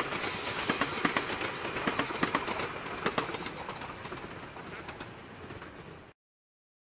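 Train wheels running on rails, with a steady rumble and hiss and irregular sharp clicks over the rail joints. The sound grows gradually quieter, then cuts off abruptly about six seconds in.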